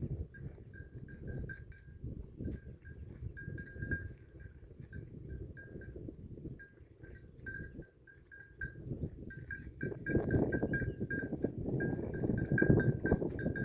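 Bells on grazing water buffalo clinking irregularly as the animals move their heads, in quick uneven strokes of one thin ringing tone. Under them is a low rustling noise that grows louder about ten seconds in.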